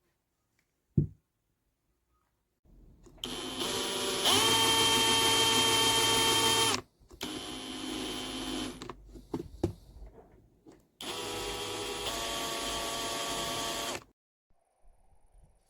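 Bosch UniversalImpact 18V-60 cordless drill motor whining in three runs. The first rises in pitch a second or so after starting, then holds steady. A shorter run follows, then a third steady run. A sharp click comes before the first run, and a few clicks come between the runs.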